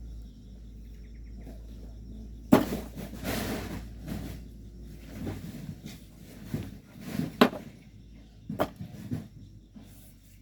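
Hand tools working volcanic sand and stone: a sharp knock followed by a second or so of scraping, then a few more scattered knocks and scrapes.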